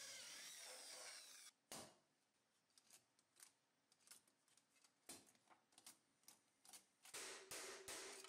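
Hand-held electric drill boring through a thin mild-steel plate, its motor pitch wavering, stopping about a second and a half in. Then a knock and light clinks of steel armour plates being handled, and near the end a quick run of hammer blows on sheet steel over a steel stake, about three a second, each with a ringing tone.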